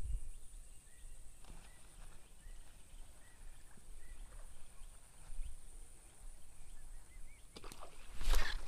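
Open swamp ambience: a steady high-pitched drone and faint short chirps. A low handling thump comes right at the start, and a loud rustling whoosh comes near the end as the baitcasting rod is swung up to cast again.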